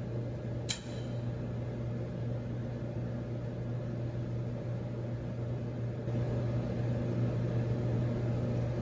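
Frigidaire gas dryer running at start-up of its heat cycle: a steady motor and blower hum with a single sharp click about a second in. The sound steps up slightly about six seconds in while the hot-surface igniter glows toward burner ignition.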